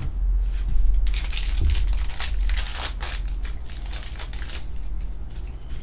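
Foil trading-card pack wrapper crinkling and rustling as it is opened and handled, loudest for a few seconds in the middle.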